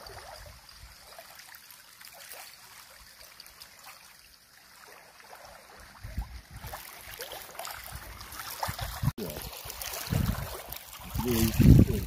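Outdoor background hiss. About halfway through, wind starts buffeting the microphone in uneven low gusts, strongest near the end.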